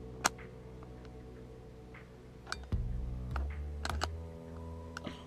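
Scattered sharp clicks and light metal clinks of hand tools working nuts on a bicycle, with a louder click just after the start and a dull thump about three seconds in.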